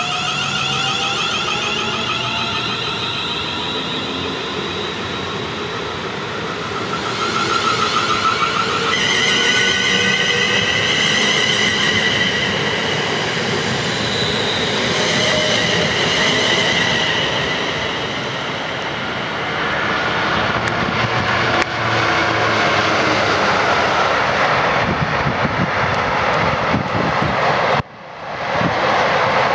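Siemens Desiro Class 350 electric multiple unit accelerating away, its traction motors whining in several rising tones over wheel and rail noise. After a brief dropout near the end comes the rumble of a freight train passing.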